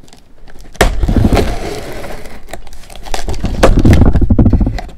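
A knife slitting the packing tape on a cardboard shipping box, then the flaps being pulled apart: tearing tape and cardboard rustling and rubbing, with a sharp click about a second in and the handling getting louder near the end.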